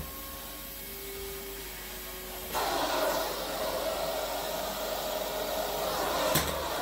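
Vacmaster 2.5-gallon, 2 peak horsepower shop vac running, with a steady rush of air through the crevice tool. The rush gets louder about two and a half seconds in.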